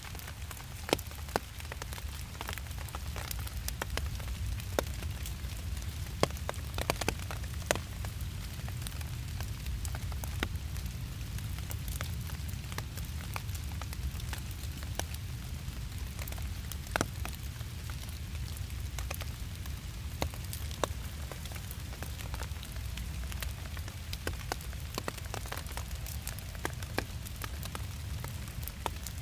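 Rain dripping in woodland: irregular drops tapping on leaves and forest litter, several a second, over a steady low rumble.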